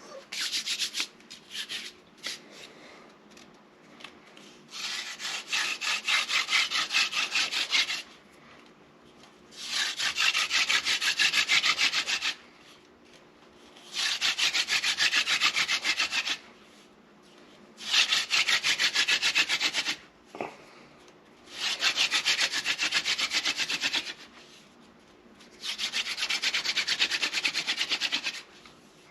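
Hand drill friction fire: a seepwillow spindle spun back and forth between the palms, grinding into a sotol hearth board with a rapid, rasping wood-on-wood scratch. It comes in six runs of two to three seconds each, with short pauses between them.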